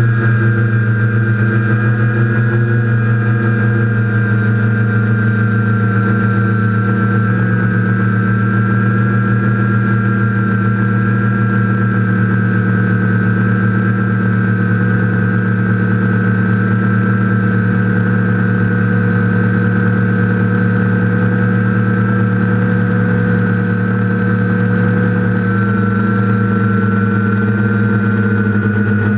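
TBS Discovery quadcopter's four electric motors and propellers running with a steady, loud whine, heard from the onboard GoPro, the pitch shifting slightly with throttle.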